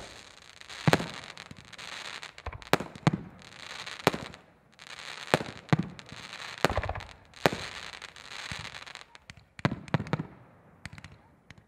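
Aerial fireworks bursting overhead: about a dozen sharp bangs at irregular intervals, roughly one a second, some in quick pairs. Between the bangs there is a hissing crackle from the bursting stars, which thins out near the end.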